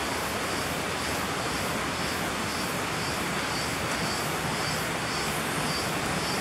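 Steady rushing travel noise of a vehicle moving along a road, wind and road noise with no change in pace, and a faint high pulsing sound about twice a second.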